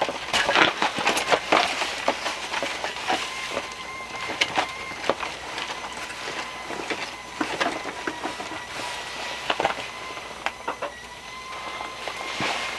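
Kettle on a wood stove whistling a steady thin tone that starts a few seconds in, over irregular clicks and crackles.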